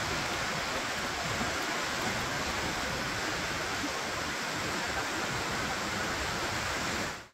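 River water rushing steadily over a small waterfall and rapids. It fades out quickly near the end.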